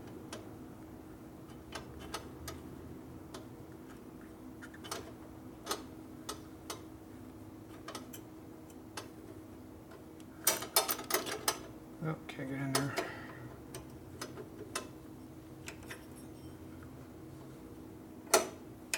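Small metal hand tool clicking and clinking against the clutch adjustment parts of a 1965 Harley-Davidson panhead. Scattered light clicks, a quick run of louder clicks about ten seconds in, and a sharp click near the end, over a steady low hum.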